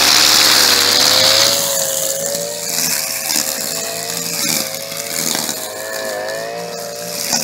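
Two-stroke petrol string trimmer running at high revs, its engine note wavering slightly as it cuts grass, with a louder hiss over the first second and a half.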